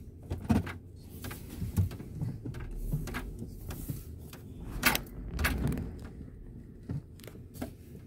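Scattered knocks and clicks, about six, over a low steady rumble inside a car.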